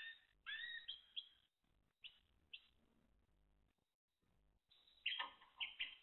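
Timbrado canaries (a Spanish song-canary breed) chirping. Short rising notes come in the first second, two brief notes follow around two seconds in, and a quicker run of notes comes near the end.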